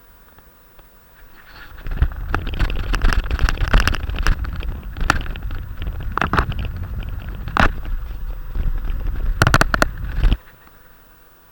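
Strong wind gusts buffeting the microphone: a loud low rumble with crackling, starting suddenly about two seconds in and cutting off abruptly near the end.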